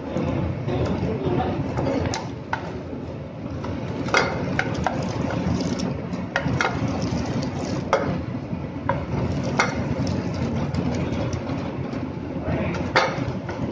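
Food sizzling in oil in a frying pan while a spatula stirs and scrapes it, with sharp clicks of the spatula against the pan every second or two.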